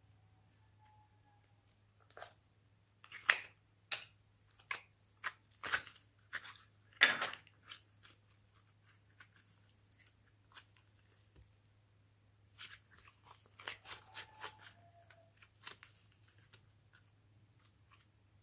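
Slime being squished and worked by hand, giving sharp crackling pops and clicks in two flurries, one in the first half and one about two thirds in.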